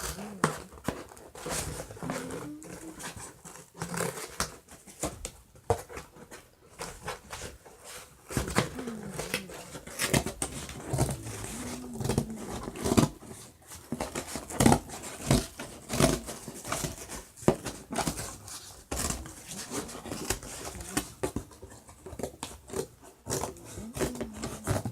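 Aluminium foil and cardboard being handled and shaped by hand: irregular crinkles, rustles and clicks throughout. A few short, low vocal sounds come in now and then.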